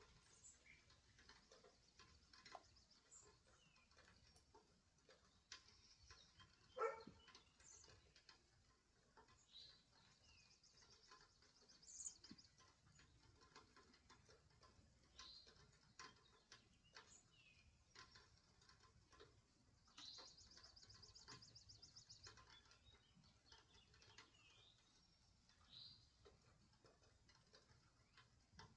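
Faint birdsong: scattered short, high chirps from several birds, with a rapid trill of repeated notes about twenty seconds in. One louder, sharp sound stands out about seven seconds in.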